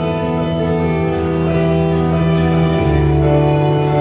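Live acoustic ensemble of violin, cello, clarinet and keyboard playing a slow passage in long held notes. The bass note shifts about three seconds in.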